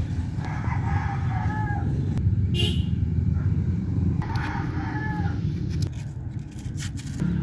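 A rooster crowing twice, each crow about a second long, over a steady low rumble.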